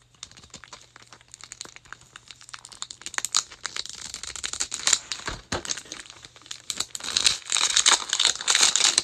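Plastic shrink-wrap on a toy capsule ball being slit with an Irwin utility knife and peeled away. Scattered small clicks and scrapes thicken into dense, louder crinkling in the last two seconds.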